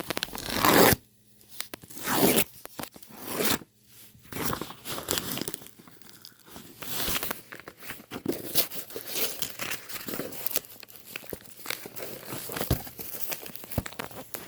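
A package being torn open by hand: three loud ripping tears in the first few seconds, then a long stretch of irregular tearing and rustling as the wrapping is pulled apart.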